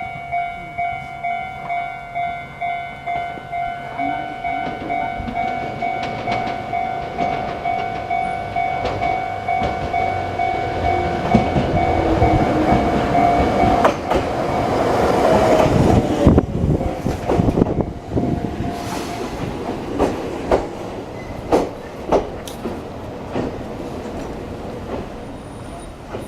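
A Chichibu Railway train passing, its wheels clacking over the rails and loudest about halfway through, followed by a few separate clacks as it goes. A steady warning tone pulses about twice a second through the first half and stops as the train goes by.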